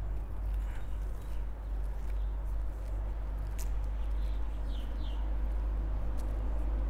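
Outdoor ambience with a steady low rumble, scattered footsteps, and two short falling bird chirps about five seconds in.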